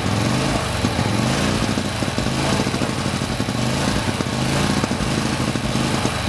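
Vintage racing car's JAP engine running stationary, its revs rising and falling over and over as the throttle is blipped.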